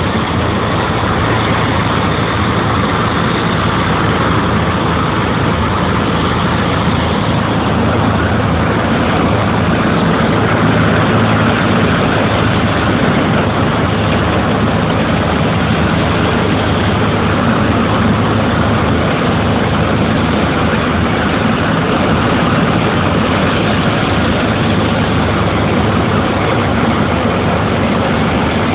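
Single-engine propeller plane's engine and propeller running steadily, heard from inside the cockpit, with wind noise, through final approach and landing on the runway.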